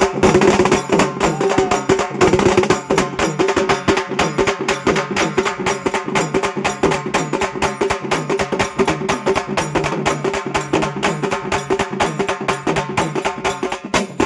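Halgi frame drums beaten with sticks in a fast, dense, even rhythm of sharp strokes over a steady held melodic tone.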